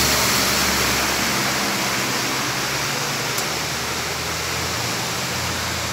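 Steady rushing hiss of floodwater flowing over a waterlogged street. A low vehicle hum fades just after the start and returns near the end.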